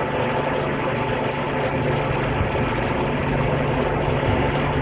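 Steady mechanical drone with a constant low hum and an even hiss over it, unchanging throughout.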